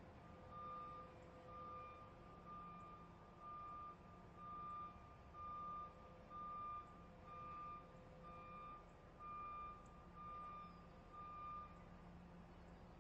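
Truck's warning beeper sounding a steady pitched beep about once a second, a dozen beeps in all, stopping about a second before the end, over a faint low hum.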